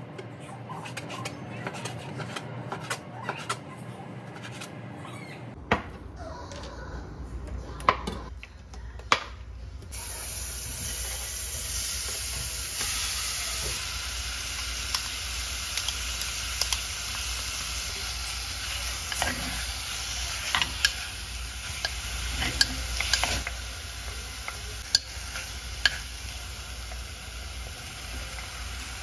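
Kitchen utensils knock and clink for the first several seconds. About a third of the way in, food starts sizzling steadily in a frying pan as it is stirred, with a spatula clicking against the pan now and then.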